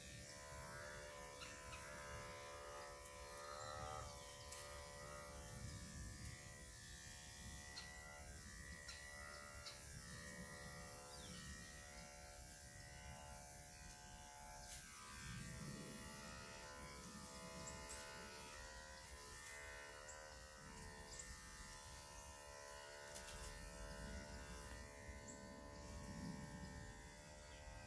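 Electric dog-grooming clippers buzzing steadily, with the pitch wavering slightly now and then as they work through the coat.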